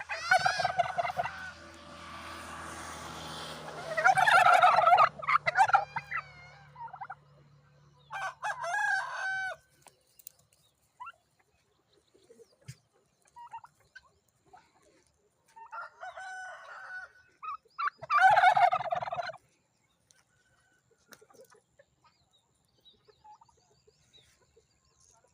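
Domestic turkeys gobbling in short rattling bursts, the loudest about four seconds in and again near eighteen seconds, with a few smaller calls between.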